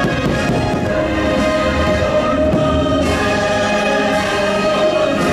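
Orchestral show score with a choir singing, loud and steady.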